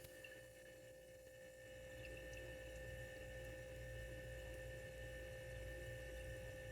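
Refrigerant trickling and gurgling through the tubing of a Gold Star mini refrigerator as it runs and cools. Under it is a faint steady hum that grows louder about two seconds in.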